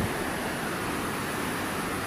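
Steady rushing of river water pouring through a weir, with a brief low bump right at the start.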